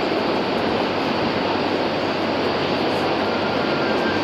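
Sentosa Express monorail train approaching along its elevated guideway: a steady rushing noise, with a faint thin whine near the end.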